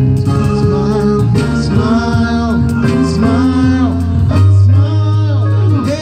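Music: a voice singing a slow melody over instrumental accompaniment with long held bass notes.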